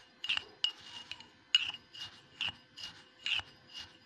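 Metal spoon stirring dry sugar and instant coffee granules in a glass jar: a rhythmic gritty scraping, about two strokes a second.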